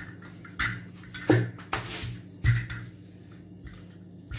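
Wooden rolling pin rolling out buttery dough on a board, knocking against the board about four times in the first couple of seconds, the loudest about a second in.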